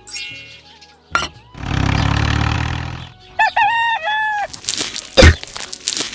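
A rooster crows once, a three-part cock-a-doodle-doo, about halfway through. Before it comes a rushing noise lasting about a second and a half, and after it a sharp, loud thump.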